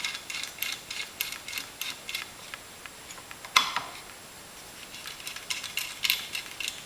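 Small irregular metal clicks and ticks as a castle nut and fat washer are threaded by hand onto the pivot bolt of an RV-7 control column assembly, with one louder click about halfway through.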